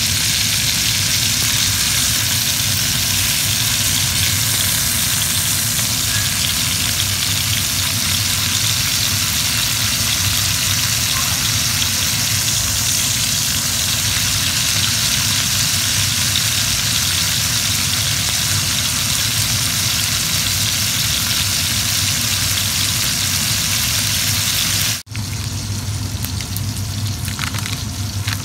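Steak searing in oil in a skillet: a steady frying sizzle over a low steady hum. It drops out sharply for a moment near the end, then continues fainter.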